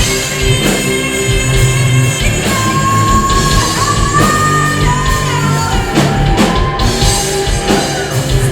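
Loud rock music with a singing voice over guitar, bass and drums.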